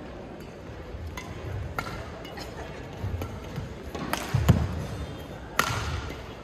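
Badminton rally: sharp cracks of rackets striking the shuttlecock, one every second or so, with shoes thudding on the court floor. A loud low thump comes about four and a half seconds in, as a player lands from a jump smash, and a loud sharp racket hit follows about a second later.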